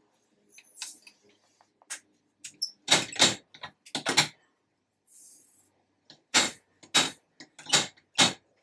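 Rifle powder measure being worked by hand: sharp metal clacks of its handle and metering drum, mostly in close pairs, with a short hiss of powder running into the scale pan about five seconds in. It is throwing a trial charge while its setting is adjusted toward the target weight.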